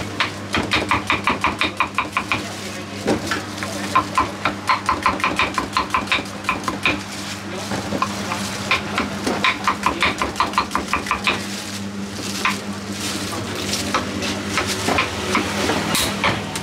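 Knife blade chopping fruit against a wooden chopping board: quick, even strokes about five or six a second, in runs of a few seconds with short pauses and sparser strokes near the end, over a steady low hum.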